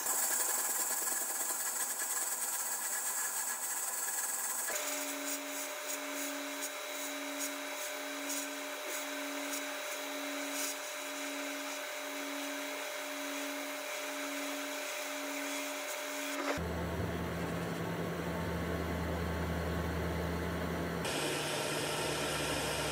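Sandblasting gun in a blast cabinet hissing steadily as the abrasive strips rust and old finish from wood and steel. The hiss changes abruptly a few times.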